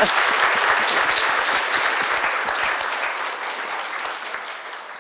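Audience applauding after the talk closes, the clapping fading steadily from about halfway through.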